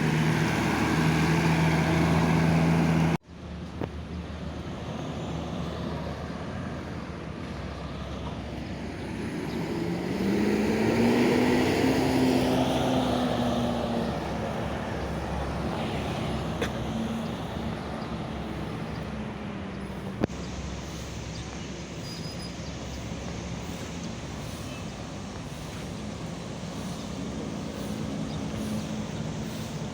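Heavy bus engines running, with one bus driving past about ten seconds in, its engine note rising and then falling away; the sound cuts off abruptly about three seconds in before picking up again.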